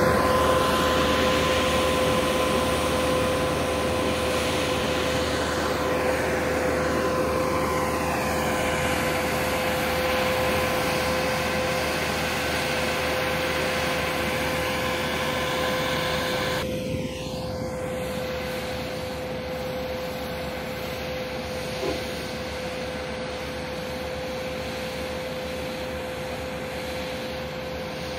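Diesel engine of a single-drum roller compactor running steadily: a continuous machine drone with a constant high whine, a little quieter from about 17 seconds in.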